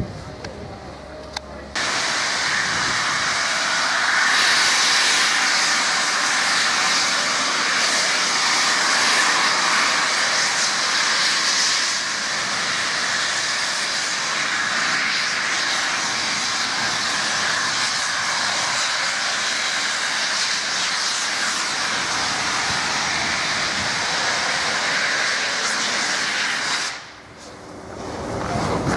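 Peppercorn A1 steam locomotive 60163 Tornado venting a great cloud of steam: a loud, steady rushing hiss that starts suddenly about two seconds in and drops away abruptly near the end.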